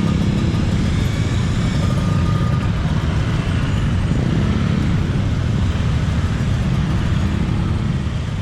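Steady road traffic noise from vehicles passing, a dense low rumble that begins to fade out near the end.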